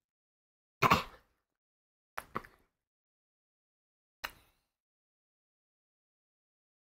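A few short sounds of a person eating a chocolate bar, separated by near silence. There is one brief breathy sound about a second in, then two small clicks close together, and one more click a couple of seconds later.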